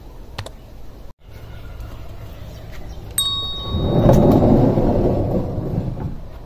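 A short bright chime, like a notification ding, about three seconds in, then a loud low rumble as the wooden shed door is opened.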